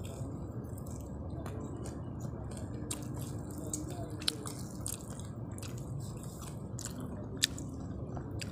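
Rice with curry sauce being eaten by hand off paper wrapping: fingers squishing and pressing the rice, with many small wet clicks and smacks of eating. Two sharper clicks come about midway and near the end.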